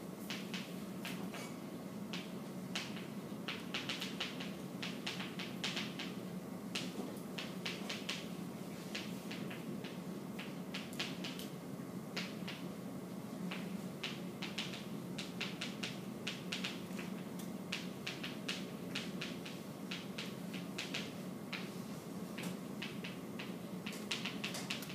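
Chalk tapping and scratching on a chalkboard as words are written, in irregular clusters of short clicks with brief pauses between, over a steady low room hum.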